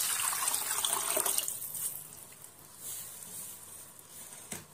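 Tamarind water pouring in a stream into a pan of tempered rasam ingredients, dying away about a second and a half in. Afterwards, quieter stirring with a wooden spatula and a single light knock near the end.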